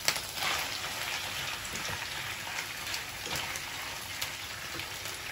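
Raw chicken cubes dropped into a pan of hot oil and ginger-garlic paste, sizzling and crackling steadily. There is a sharp hit as they go in, and the sizzle is loudest just after.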